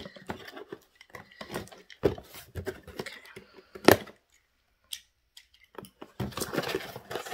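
Cardboard shipping box being cut and pulled open by hand: scattered scrapes and small knocks, one sharp snap a little before four seconds in, and a short burst of tearing about six seconds in as a flap comes free.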